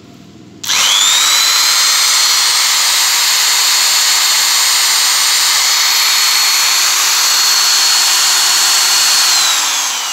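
Hitachi 100 V, 700 W corded electric drill switched on under a second in and spinning up quickly to a steady high whine, running with no load. Near the end the trigger is released and it winds down with a falling pitch.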